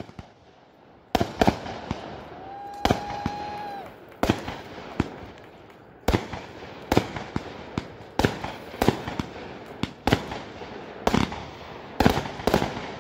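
Consumer aerial fireworks fired one after another from the same spot, a sharp bang about every second, often a launch thump followed closely by the burst. A steady whistling tone sounds for about a second and a half near the start.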